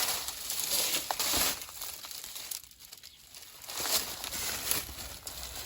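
Irregular dry rustling and crunching, like someone moving through dry grass and leaves. It quietens about halfway through, then picks up again.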